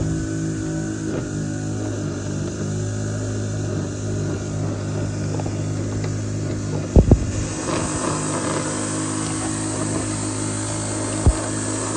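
An engine running steadily, with a hiss joining in a little before eight seconds in. Two sharp knocks come close together about seven seconds in, and another comes near the end.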